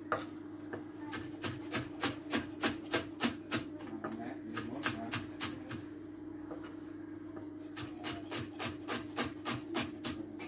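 Kitchen knife slicing a leek into strips on a wooden cutting board: runs of quick knocks of the blade against the board, about three a second, with a lull around the middle.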